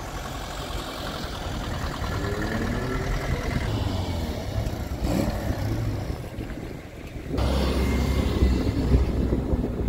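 Classic cars driving slowly past one after another, their engines running. About seven and a half seconds in, the sound suddenly gets louder as a car passes close by: a red first-generation VW Golf.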